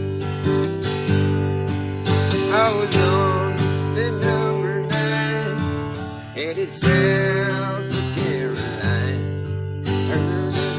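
Instrumental break of a country song: acoustic guitar strumming chords under a lead melody whose notes bend in pitch.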